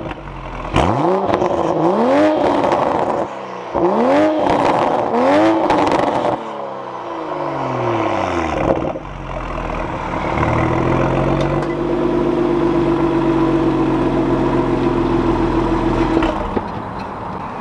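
Toyota Supra engine with a catless downpipe being revved: four quick revs in two pairs rise and fall. It then holds a steady higher rpm for about six seconds before dropping back near the end.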